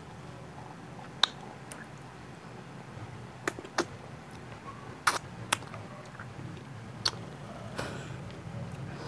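Wet mouth sounds of someone eating an ice pop: a handful of short, sharp lip smacks and tongue clicks at irregular intervals over a low steady hum.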